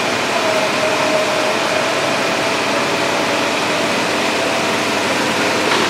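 Steady whooshing hum of a refrigerated drinks display fridge's circulation fan, with its door open and the fan close by.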